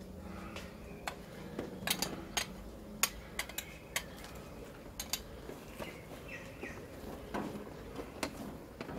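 Light clicks and taps of metal tongs and a bowl against a grill mat tray as sliced red onions are tipped out and spread. A bird chirps faintly a few times about two thirds of the way through.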